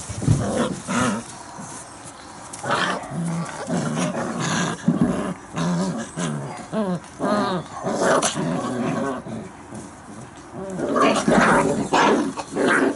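A litter of month-old German Shepherd puppies growling and squealing as they play-fight, in short clusters of small high cries and growls.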